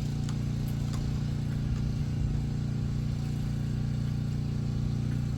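An engine idling steadily: an even, low hum, with a few faint clicks in the first second or so.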